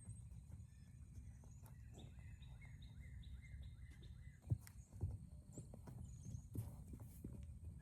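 A horse's hooves thudding and shuffling on the ground, with a few sharper thuds in the second half, the loudest about four and a half seconds in. Birds chirp in short repeated notes, over a low outdoor rumble.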